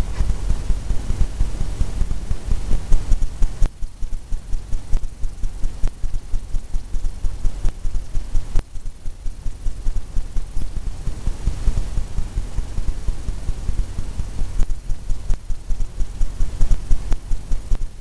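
Oil-paint brush dabbing against a stretched canvas on an easel: a fast, even run of low thumps, about four a second, with a couple of brief breaks.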